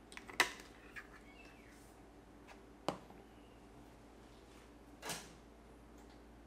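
A few small clicks and knocks of handling, the loudest about half a second in and a softer one about five seconds in: a white plastic lid and a glass cup of roasted coffee beans being moved and set down on a wooden table.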